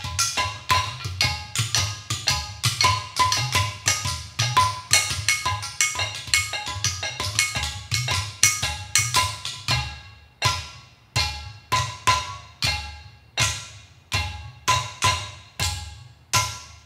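Percussion trio playing custom-made hand-thrown ceramic instruments (clay pot drums in the ghatam and udu style, and small ceramic bowls), struck with hands and sticks in interlocking patterns, the pots giving dull knocks and bass tones and the bowls clear ringing pitches. The playing is dense at first, then after about ten seconds thins to strokes about two a second, each left to ring.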